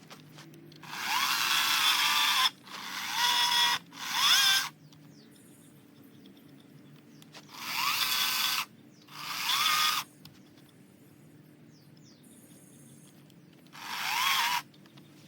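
Handheld power tool working wood in six short bursts of one to two seconds, its pitch rising as it spins up at the start of each burst.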